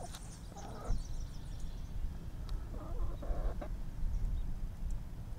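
Chickens clucking as they feed on wheat grass: a few short clucks about a second in and again around three seconds in, over a steady low rumble.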